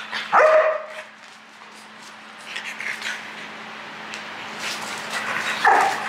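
A dog barking in play: a loud short bark about half a second in and another near the end, with quieter yips and scuffling between.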